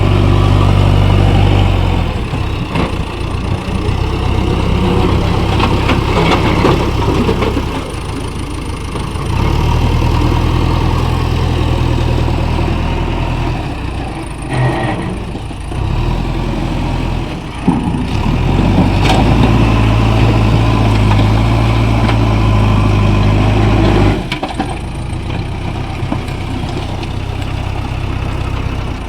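Diesel engine of a JCB 3DX backhoe loader working under hydraulic load. It rises to a louder, heavier note three times and drops back between. A single sharp knock comes a little past halfway.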